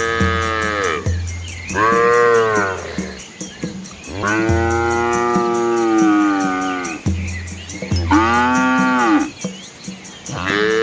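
Cattle mooing: five calls in a row, each rising then falling in pitch, the middle one drawn out to about three seconds.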